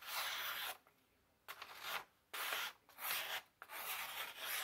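Sitivien ST127 folding knife's blade slicing through a sheet of paper in a sharpness test, about five separate cutting strokes, each a short hissing rasp.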